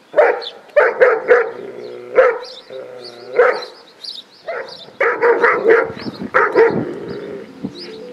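German Shepherd barking repeatedly, in quick runs of several barks with short pauses between.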